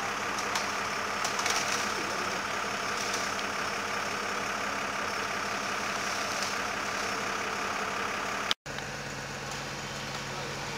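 Volvo FL 220 aerial-platform fire truck's diesel engine idling steadily while it powers the lift. The sound drops out for an instant about eight and a half seconds in, then the steady low hum carries on.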